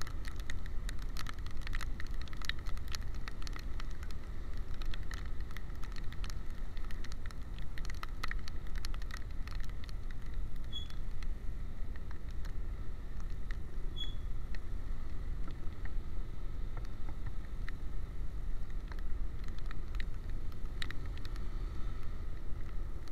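Wind buffeting the microphone of a camera on a moving motorcycle, with raindrops ticking against the camera and faint engine and road noise underneath. Two short high beeps sound near the middle.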